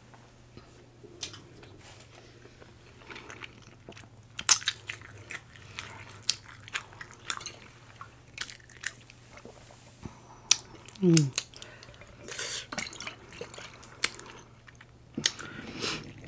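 A person chewing food close to the microphone: irregular wet mouth clicks, smacks and crunches. About eleven seconds in comes a short hummed 'mm' that falls in pitch.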